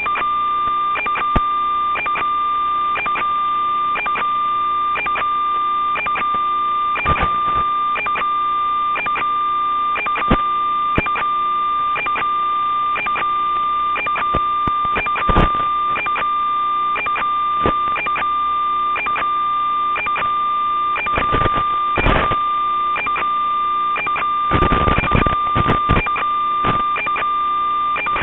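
Steady electronic tone and hiss on an analog FPV video link's audio channel, with a click about twice a second. Heavier bursts of static crackle come at about seven, fifteen and twenty-two seconds in, and more come near the end.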